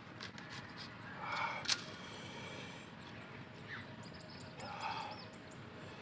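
Knife cutting into a crisp green mango: a few light clicks and one sharp snap a little under two seconds in.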